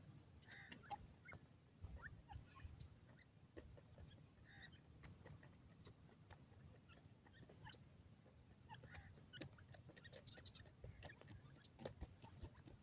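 Grey francolins foraging in dry soil: scattered faint clicks and scratches of beaks and feet in the dirt, with a few soft, quiet notes from the birds.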